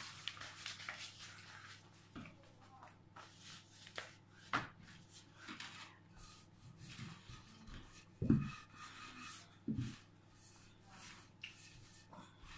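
Pizza dough being stretched by hand and rolled out with a wooden rolling pin on a silicone pastry mat: soft rubbing with scattered light taps and clicks, and a couple of louder dull bumps about two-thirds through.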